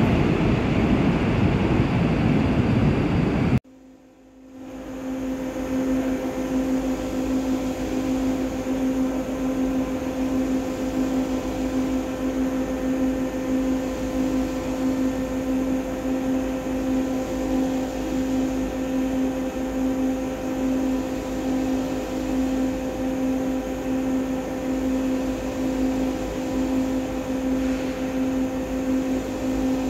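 A Korail electric train moves along the platform behind the screen doors with a loud, dense rumble, which cuts off suddenly about three and a half seconds in. After that comes a steady hum with a low held tone, from the empty underground platform.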